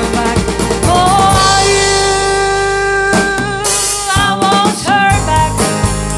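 Live band music: a woman singing long, wordless held notes over strummed acoustic guitars and a drum kit.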